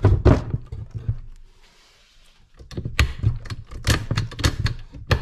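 Clicks and clunks of a Kawasaki Tecate 4 two-stroke engine's transmission being shifted through its gears by hand: a quick run of knocks, a short pause, then a longer series of clicks and clunks.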